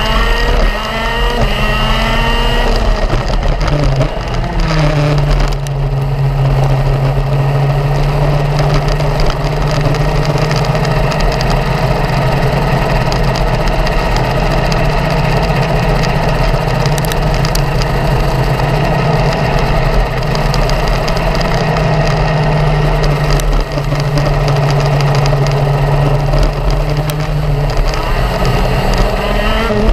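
Racing kart's engine heard on board at speed. The revs drop at the start as it slows for a bend, climb again about four to five seconds in, hold high and steady for most of the stretch, then fall near the end.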